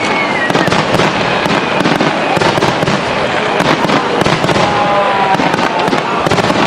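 Fireworks display: a continuous dense run of overlapping bangs and crackles, with a few brief pitched whistle-like tones.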